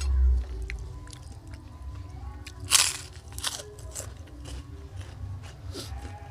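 A person biting and chewing crunchy food close to the microphone: one loud, crisp crunch a little under three seconds in, then several smaller crunches. Background music runs underneath.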